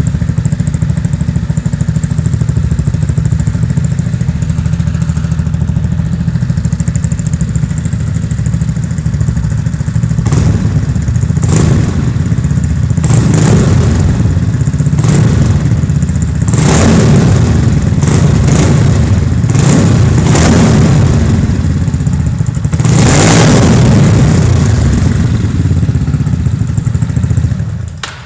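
Yamaha XMAX 250 scooter's single-cylinder four-stroke engine running through a Yasuni aftermarket exhaust with catalytic converter. It idles steadily, then is blipped in a string of short revs from about ten seconds in, with one longer rev near the end, and is switched off at the very end.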